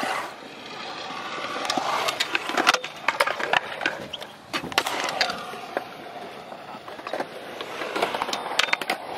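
Freestyle kick scooter's hard wheels rolling on a concrete skatepark bowl, the rolling noise swelling and fading as it carves, with many sharp clacks of the scooter hitting the concrete.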